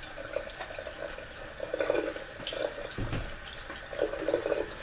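A steady wash of running water, with irregular wet squelching and rustling as raw chicken thighs and wings are handled and trimmed.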